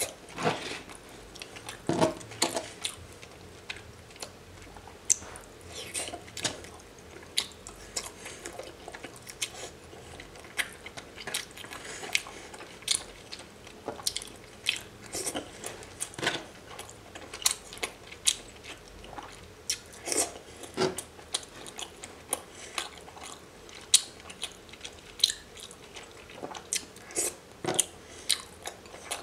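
Close-miked chewing of sauce-dipped raw scallops: wet, sticky mouth sounds with frequent sharp smacks and clicks at an irregular pace, one or two a second.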